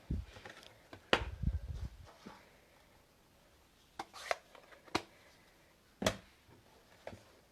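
Stamping tools and paper being handled on a tabletop: a low handling rumble in the first two seconds, then a handful of separate sharp clicks and taps.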